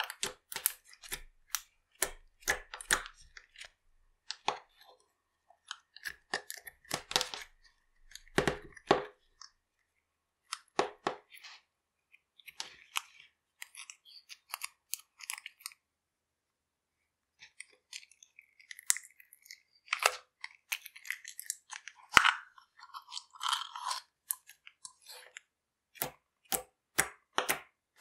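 Clear slime being pressed, poked and kneaded by hand, giving irregular sticky squelches and sharp clicks in clusters, with a short pause a little past halfway.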